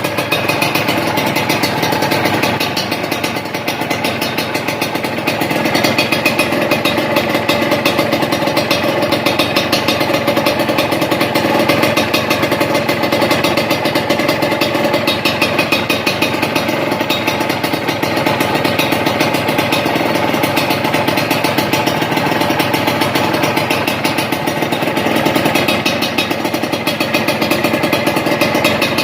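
Suzuki TS125's single-cylinder two-stroke engine running steadily at idle through a Triton RS-5 stainless steel full-system exhaust.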